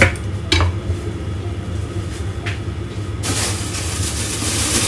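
A knife slicing ginger, with three sharp knocks on the board, then a rustling hiss from about three seconds in, over a steady low hum.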